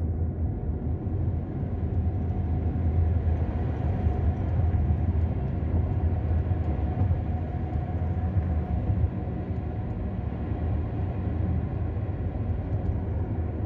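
Steady road rumble of a car moving at highway speed: tyre and engine noise heard from inside the car, deep and unbroken.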